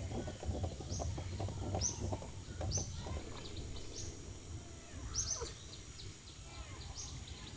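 A bird repeating a short, high, downward call about once a second, over low knocking and rustling close by.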